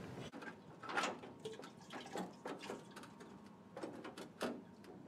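A few faint knocks and scrapes as a Ford Model T's radiator is handled and worked loose from its mounts.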